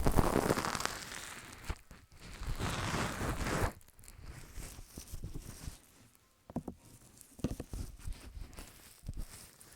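ASMR ear massage: fingers rubbing and brushing close over the microphone, a swishing rub that fades, a second longer rub about two seconds in, then scattered soft taps and small rustles.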